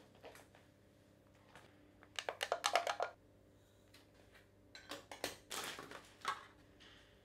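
Kitchen handling at a stainless steel food processor bowl. About two seconds in there is a quick run of light clicks and clatter, then near the end the rustle of a baking powder sachet being emptied into the bowl, over a low, steady hum.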